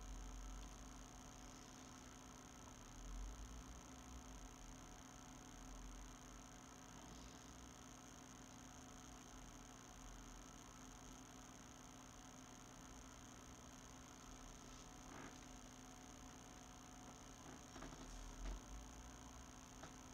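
Near silence: a faint steady electrical hum, with a few faint clicks in the last third.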